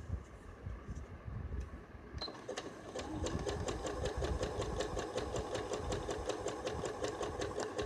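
Electric sewing machine with a zigzag foot stitching a rolled zigzag hem along a saree edge. A short beep comes about two seconds in, then the machine runs fast but short of full speed, with a rapid, even clicking of the needle over a steady hum.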